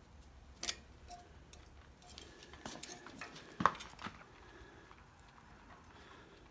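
Steel scriber scratching lines across the end of a 1-inch square steel bar held in a vise, guided by a small steel square: light scraping with scattered sharp metal clicks as the square and scriber are set against the bar, the loudest click about halfway through.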